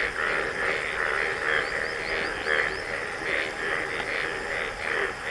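A chorus of animal calls pulsing steadily about three times a second. A few short, high rising chirps come around two seconds in.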